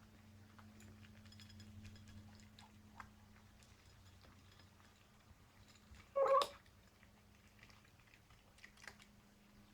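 Bengal kitten eating: faint clicks of chewing, with one short, loud cat vocal noise about six seconds in and a softer one near nine seconds.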